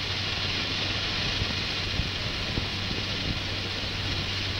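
Steady rushing noise over a low hum as an X-15 rocket plane slides along a dry lakebed on its landing skids.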